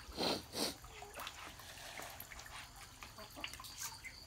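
Catfish feeding at the water surface of a cement tank, taking pellet feed: small pops, drips and slurps of water throughout, with two louder splashes in the first second.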